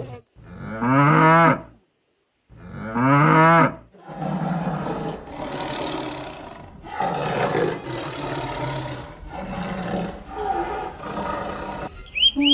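Animal calls: two long pitched calls about a second and a half each, rising and then levelling off, followed by a run of rough, hoarse calls about a second long each.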